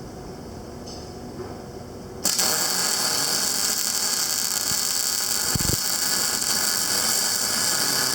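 Panasonic YD-160SL7 semi-automatic wire-feed welder striking an arc about two seconds in and welding with a steady loud hiss and crackle for about six seconds, then stopping. Before the arc, only the machine's low hum.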